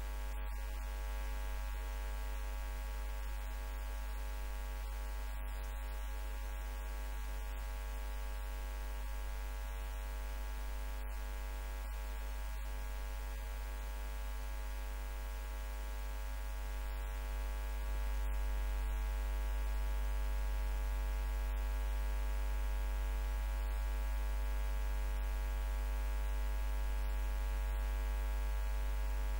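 Steady electrical hum with a buzzy stack of overtones, typical of mains hum on the audio line. It gets somewhat louder about two-thirds of the way through.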